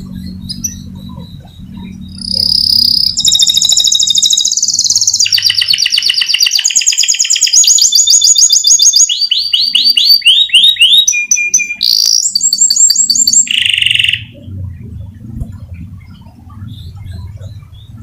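Domestic canary singing a long rolling song: rapid trills, each held for a second or two before jumping to a new pitch, starting about two seconds in and breaking off about four seconds before the end. A low steady hum sits underneath before and after the song.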